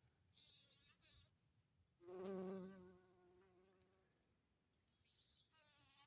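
A bee buzzing close by while it works flowers for nectar: a faint buzz near the start, a louder steady buzz lasting about a second and a half from about two seconds in, and another brief buzz near the end.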